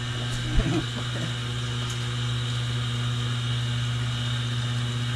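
A steady low motor hum, with fainter steady higher tones above it and a soft knock about half a second in.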